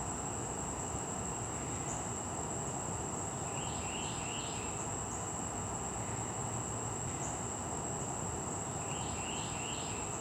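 Steady, high-pitched insect trill, unbroken but for brief dips. A short three-part call comes twice, about four and nine seconds in, over low background rumble.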